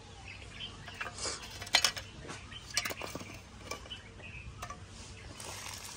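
Small hand shovel scraping and knocking in dry, pebbly soil: a scattering of irregular scrapes and sharp clinks, the loudest about two and three seconds in.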